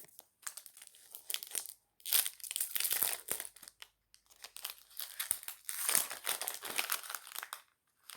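Trading-card pack wrapper being crinkled and torn open, in irregular bursts with short pauses between them.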